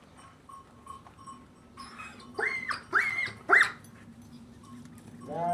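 Three short, high yelping calls in quick succession about two seconds in, each sweeping sharply up and back down; right at the end a lower, drawn-out bleat begins.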